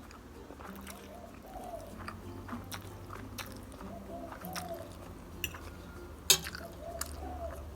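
Close-up eating of Mi Sedaap instant noodles: chewing and small mouth and utensil clicks, with one sharper click about six seconds in.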